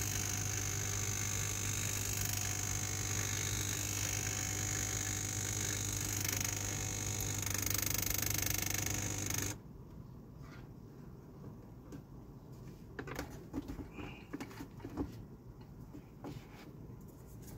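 Laurastar steam iron station letting out steam: a steady hiss over a low electric buzz that cuts off abruptly about halfway through. It is followed by a few clicks and knocks of the plastic iron being handled and set back on its base.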